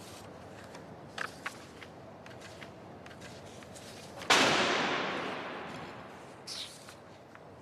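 A sudden loud crash-like hit that rings and fades away over about two seconds, after a few faint clicks.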